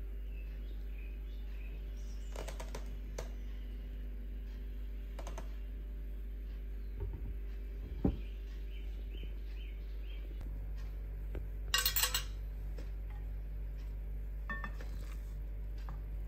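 Scattered light clicks and taps, with a short cluster of louder clicks about twelve seconds in, over a steady low hum.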